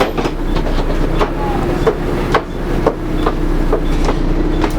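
Repeated ticking from a Volvo B7TL/Wright Eclipse Gemini double-decker bus, short sharp clicks coming unevenly about two to three times a second over a steady hum.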